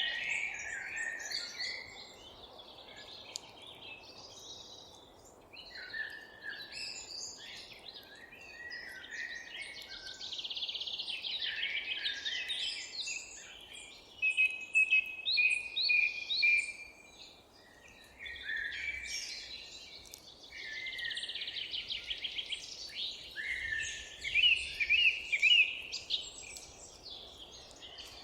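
Several birds singing in overlapping phrases, with fast trills and a held whistled note in the middle, over a faint steady background noise.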